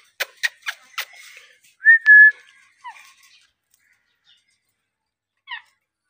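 Four quick sharp clicks, then an Indian ringneck parakeet gives one short, loud whistle at a steady pitch. Two faint, short calls falling in pitch follow later.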